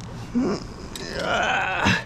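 A man's effortful vocal sounds while landing a hard-fighting carp: a short grunt about half a second in, then a longer strained groan that drops in pitch near the end.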